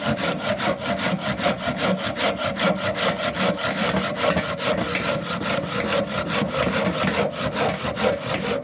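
Hand saw with a yellow handle cutting through a dry Christmas-tree trunk, in quick, even back-and-forth rasping strokes, several a second.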